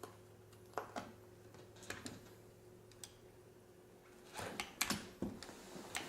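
Scattered light clicks and knocks of things being handled and set down, a cluster of them near the end, over a faint steady hum.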